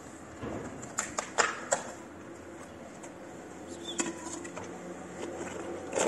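A few sharp clicks and knocks about a second in, then a plate set down on tiled pavement about four seconds in, with a backpack being handled near the end.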